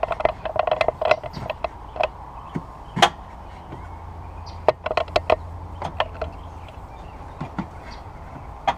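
Air intake assembly being worked loose and fished out of a car's engine bay: a string of irregular clicks and knocks as the intake parts bump and catch on the parts around them, over a steady low hum.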